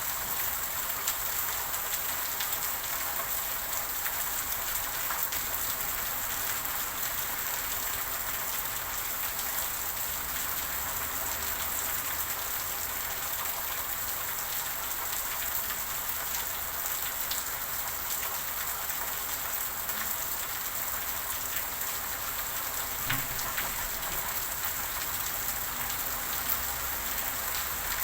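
Steady rain falling, a continuous hiss with many fine drop ticks and a few slightly sharper drips.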